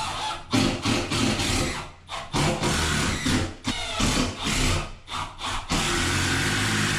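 Cordless drill running in about four bursts of a second or so each, with short pauses between.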